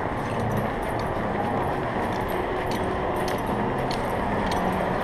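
Faint, irregular metallic clinks of a dog's chain collar and leash clip as the dog walks, over a steady dull background noise.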